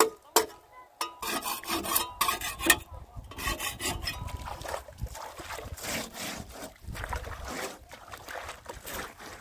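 A steel trowel scraping and mixing wet cement mortar against a metal wheelbarrow pan, in a series of short rasping strokes.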